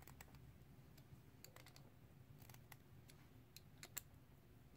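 Faint, irregular light clicks of a hand driver working the small screws of an RC crawler wheel's beadlock ring as they are tightened down, over near-silent room tone.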